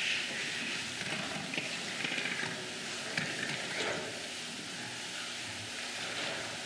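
Steady hiss of background noise with faint, indistinct sounds now and then.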